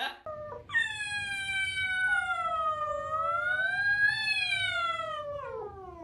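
A cat giving one long, drawn-out yowl of about five seconds, wavering in pitch and sliding down at the end, after a couple of short cries.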